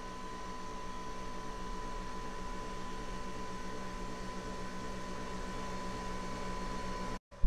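Breville Nespresso Vertuo Plus capsule coffee machine brewing: a steady motor hum with a high whine, as it spins the pod and a stream of coffee runs into the mug. The sound cuts off suddenly near the end.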